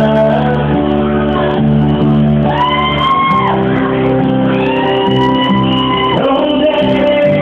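Live band music: steady sustained keyboard chords, with a singer shouting out two long, high held notes that slide up into the note and fall away at the end, about two and a half and five seconds in. Heard through a phone's microphone, thin and dull at the top.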